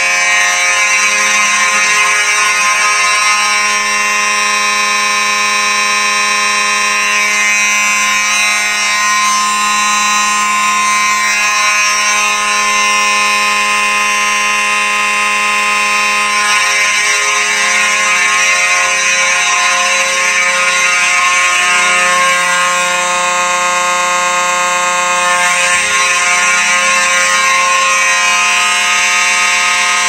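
Several Simplex fire alarm horns sounding together in a loud, continuous blare, with no pauses or temporal pattern.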